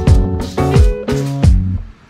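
Background music with a steady, punchy drum beat that cuts off suddenly near the end.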